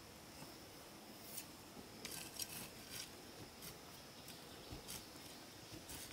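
Folding shovel scraping and tapping in loose soil: a few short, irregular strokes. Under them runs a steady, high insect drone.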